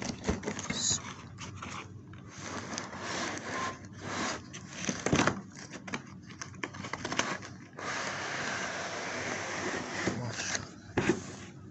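Unboxing handling noise: a cardboard box and molded pulp packaging tray scraping and rustling under the hands in irregular short scrapes and clicks, then about eight seconds in a steadier stretch of rustling lasting a couple of seconds as the plastic-wrapped laptop is touched.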